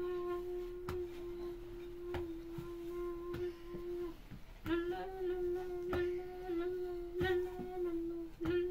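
A person humming one long, nearly steady note, broken by a short pause about four seconds in, with a slight waver in pitch. Short knocks come regularly, a little under once a second, under the humming.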